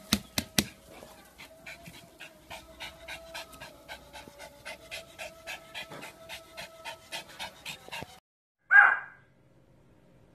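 Pomeranian panting quickly and evenly, about three to four breaths a second, after three sharp clicks at the start. About a second after the panting stops, a single short bark.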